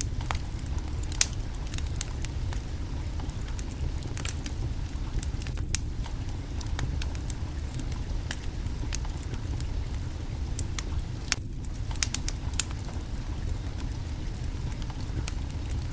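Wood fire burning under a cooking pot, with irregular sharp crackles and pops over a steady low rumble of flame.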